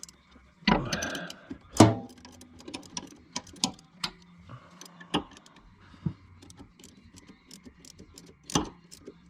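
Wrench working the 13 mm bolts loose on a mini excavator's hydraulic tank cover plate: several sharp metal clicks and clanks with a run of small ticks between them.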